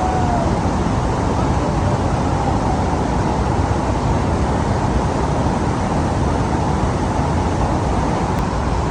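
Niagara Falls waterfall: a steady, loud rush of falling water.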